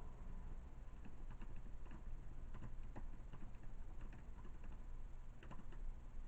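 Faint, irregular clicks of typing on a computer keyboard, coming in small clusters, over a steady low hum.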